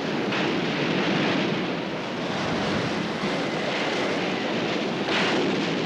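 Stormy wind and sea waves: a steady rushing noise that surges about a third of a second in and again about five seconds in.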